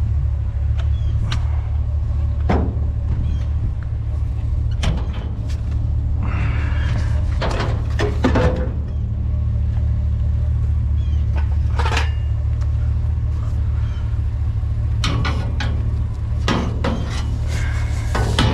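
A vehicle engine runs steadily with a low rumble, with scattered knocks and clanks over it and a stretch of rattling about seven seconds in.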